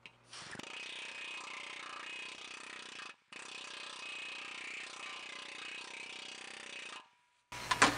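Planishing hammer rapidly hammering a sheet-metal motorcycle fender between its dies, smoothing the shrunk area. It runs in two stretches with a brief stop about three seconds in, and stops about seven seconds in. A louder, different noise cuts in just before the end.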